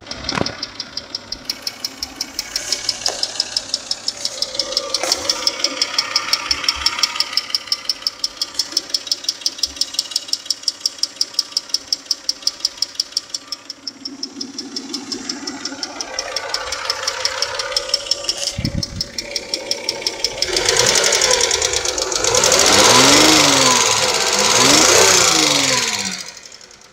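Toyota Camry 1MZ-FE V6 engine running with an even, rhythmic ticking knock of several strokes a second, an extraneous noise whose cause the owner cannot find. Near the end the engine is revved up twice and falls back.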